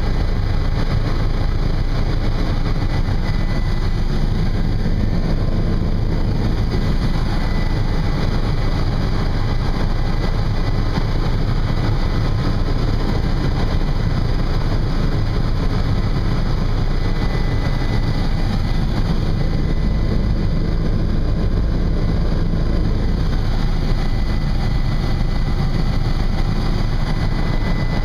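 Steady drone of a tour helicopter's engine and rotor, heard from inside the cabin, with a faint steady high whine.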